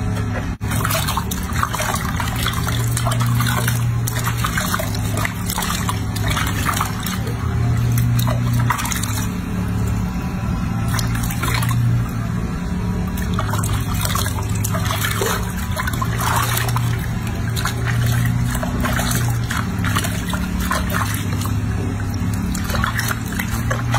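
Water sloshing and splashing in a sink as hands lather and rub a wet baby monkey, with frequent short splashes and drips, over a steady low hum.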